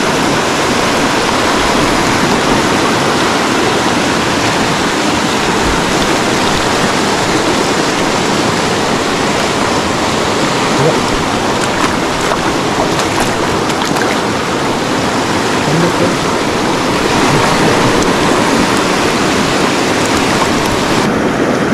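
River water rushing steadily, a loud and even flowing noise.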